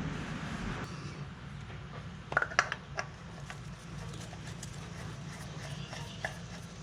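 A few sharp clicks and taps from handling the new spin-on oil filter, a quick cluster about two and a half seconds in and a single one near the end, over a low steady hum.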